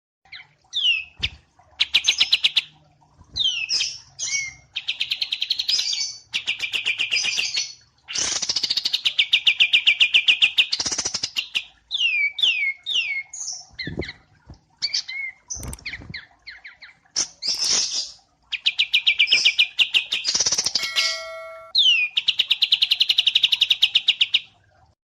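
Small songbirds, wambi mini and kapas tembak, singing a tutoring recording: fast chattering trills and short sweeping whistled notes in phrases of a second or two, separated by brief pauses.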